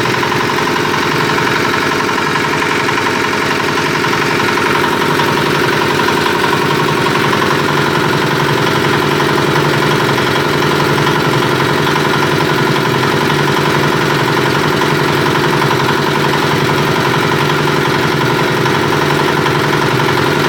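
Small mixer machine (50–150 kg per hour) running steadily, its drive giving a constant mechanical hum.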